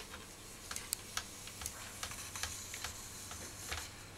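Faint, irregular small clicks and ticks from a Hama Star 62 tripod's plastic pan-tilt head as it is handled and turned by its pan handle.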